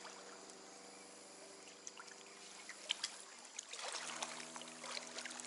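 Stream water trickling and flowing faintly, with a few sharp clicks around the middle and more rustling near the end.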